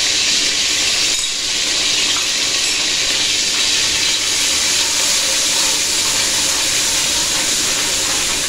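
Ginger-garlic paste sizzling in hot oil in a wok while a steel ladle stirs it: a loud, steady hiss.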